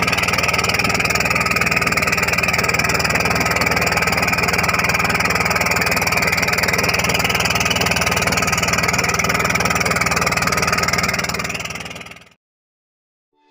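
Small wooden fishing boat's engine running steadily under way, a fast, even beat that fades out near the end.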